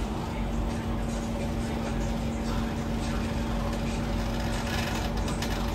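Cabin running noise of an SMRT C651 metro train: a steady rumble from the wheels and track, with a constant hum that sets in about the start.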